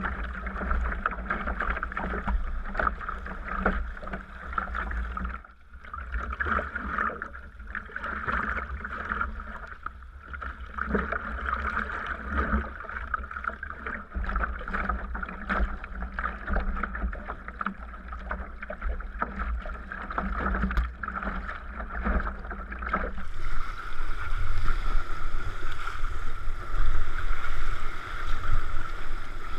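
Sea kayak under paddle: irregular splashes of the paddle blades dipping into the water over a continuous wash of sea water, with a low rumble of wind on the microphone.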